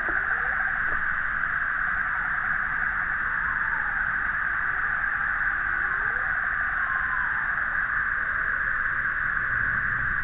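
Faint cooing of Oriental turtle doves (Streptopelia orientalis), a few soft sliding notes, over a steady high hiss that is the loudest thing throughout.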